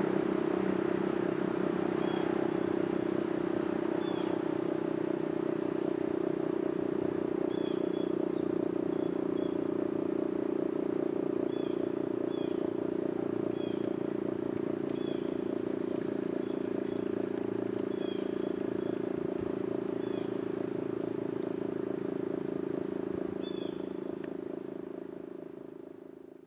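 Federal Signal STH-10 outdoor warning siren sounding a loud, steady tone that holds its pitch, then fading out over the last couple of seconds.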